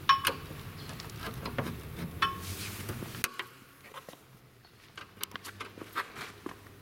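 A screwdriver working the screws of a treadmill's plastic motor cover: short squeaks and light clicks. About a third of the way in the background noise drops away suddenly, and scattered light clicks of the cover and wires being handled follow.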